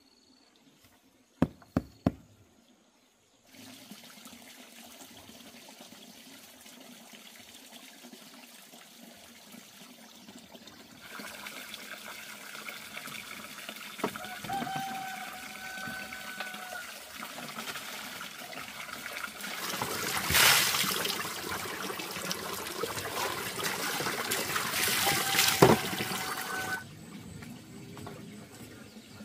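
Water running from a pipe and splashing into plastic basins, growing louder partway through, with a few knocks of the basins and tray; two sharp knocks sound near the start.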